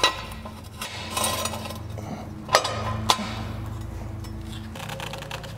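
Sharp metal clinks of a wrench and socket against the lug nuts and steel wheel spacer on a tractor's wheel hub. Two clinks come about half a second apart midway through, over steady background music.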